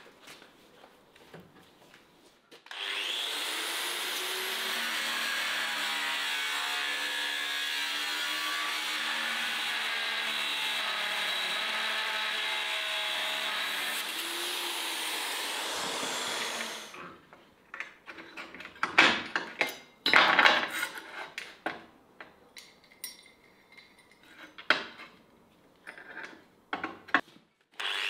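A small motor-driven tool runs steadily for about fourteen seconds, then stops. Irregular knocks and scrapes follow.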